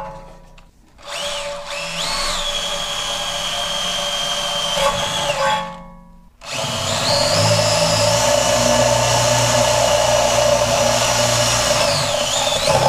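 Cordless drill boring holes through an aluminium diamond-plate motorcycle belly pan. It makes two runs of several seconds each, with a short stop about six seconds in. Each run has the motor whining up to speed and then holding steady, and the second run winds down near the end.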